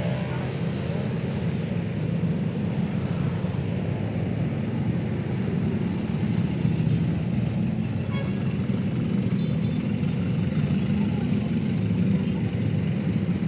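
Steady city road traffic: a continuous low rumble of passing vehicles on a busy street.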